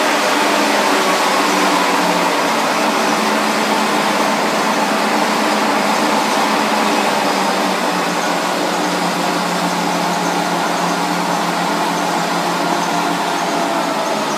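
Bielomatik automatic exercise-book production line running empty, without paper, in a test after its overhaul: a loud, steady mechanical whir with several steady tones.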